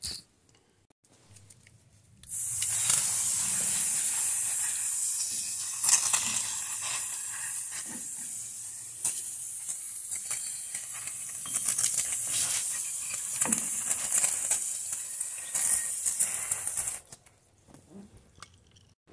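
Water spraying in a steady hiss onto a drum brake assembly to wet down old brake-lining dust. It starts about two seconds in and stops about two seconds before the end, with a few light knocks along the way.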